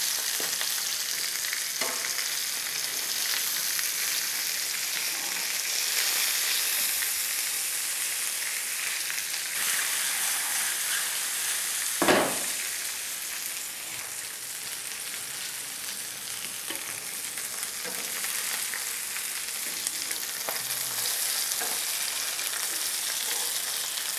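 Fish fillets frying in butter and oil in a nonstick pan: a steady sizzle, with a few light knocks and one brief louder knock a little past halfway.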